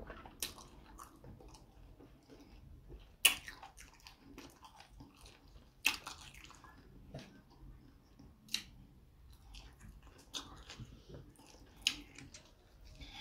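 Close-up chewing and wet mouth smacks of someone eating fufu with ogbono soup, broken by several sharp clicks, the loudest about three, six and twelve seconds in.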